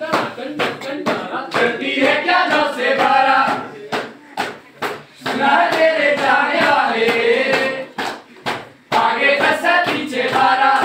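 A group of voices singing a song, with steady rhythmic clapping. The singing breaks off briefly about four seconds in and again about eight seconds in, while the clapping goes on.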